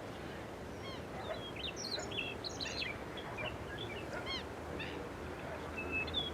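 Several songbirds calling at once: a busy, overlapping chatter of short chirps and quick whistled notes that continues without a break.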